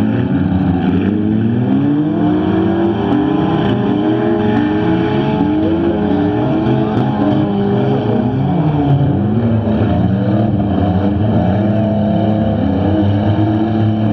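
Several stock front-wheel-drive cars racing, their engines revving up and down in overlapping rising and falling waves of pitch.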